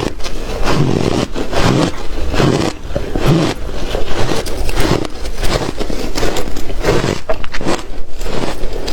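A person biting and chewing hard shaved ice with loud, continuous crunching and crackling, with no let-up.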